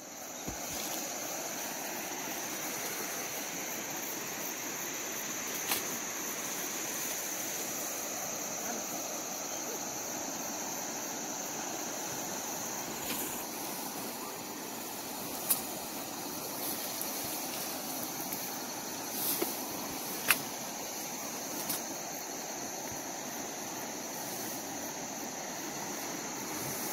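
Shallow river water running over stones, a steady rushing, with a steady high insect drone throughout and a few brief clicks.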